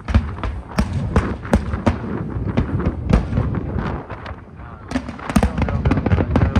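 Fireworks display: rapid, overlapping bangs and crackles, easing off briefly about four seconds in, then coming thick and fast again.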